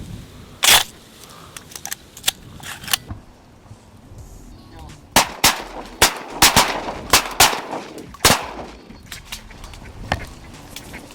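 Several hunters' shotguns firing at ducks: one loud shot about a second in, a few lighter pops, then a rapid volley of about eight shots from about five to eight and a half seconds.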